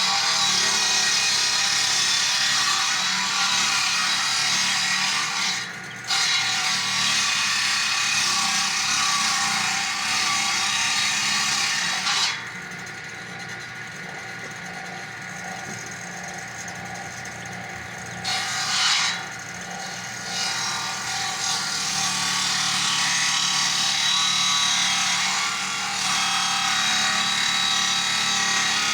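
Chainsaw cutting wood at full throttle, with a brief break about six seconds in. Around twelve seconds in it drops back to a quieter, steady running for about six seconds, revs up briefly, then runs loud again.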